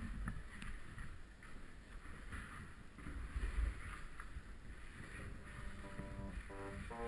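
Muffled underwater noise from a camera moving through a flooded cave passage: a low rumble of water movement with irregular swells of hiss. Plucked-string background music comes in near the end.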